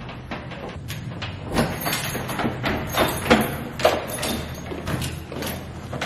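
Keys jangling and clicking in a door lock as a wooden apartment door is unlocked, with a run of sharp metallic clicks and knocks; near the end the door opens.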